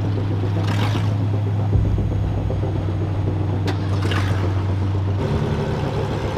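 A vehicle engine running steadily, a low hum, with a few brief scraping or rasping noises over it. The hum changes abruptly about five seconds in.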